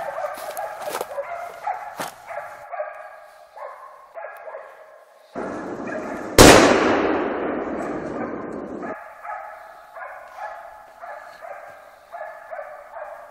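Hunting dogs baying in repeated barks throughout. About six seconds in comes a single rifle shot, the loudest sound, its report echoing and dying away over a couple of seconds.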